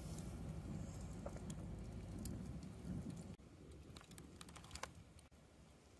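Wood fire crackling in a metal fire ring: sharp scattered pops over a low rumble. About three seconds in, the rumble drops off suddenly, leaving quieter, scattered clicks.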